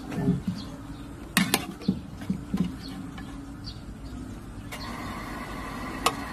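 A metal cooking utensil clicks and taps against a pan as blanched leafy greens are lifted out of the hot water, a few sharp clicks between about one and three seconds in. Under it runs a steady low hum, with faint, short high chirps now and then.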